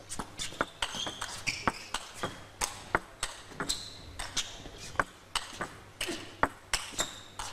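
Table tennis rally: the celluloid ball clicks sharply off rackets and table in a quick, irregular back-and-forth, about two hits a second, starting from a serve.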